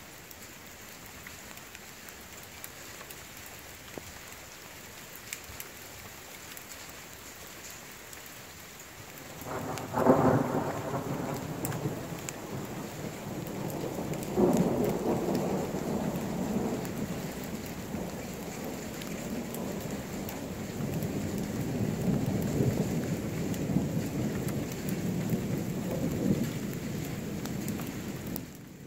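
Thunder after a lightning flash: a sudden loud clap about ten seconds in, a second peal a few seconds later, then a long rolling rumble that dies away near the end. Steady rain hisses underneath throughout.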